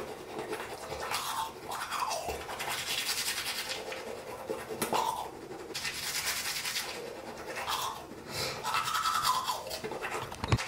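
Teeth being brushed with a manual toothbrush and toothpaste: wet, rapid back-and-forth scrubbing that goes on throughout.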